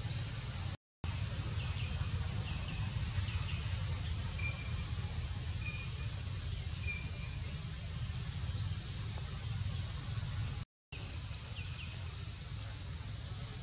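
Outdoor ambience: a steady low rumble under a constant high insect drone, with scattered short bird chirps. The sound cuts out to silence briefly about a second in and again near the end.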